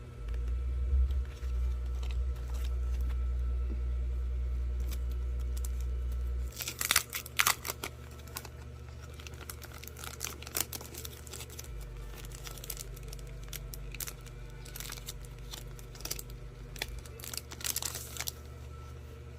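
Packaging being handled, crinkled and torn open in short crackly bursts, loudest about seven seconds in and again near the end. A low rumble of handling noise on the microphone runs through the first six seconds or so.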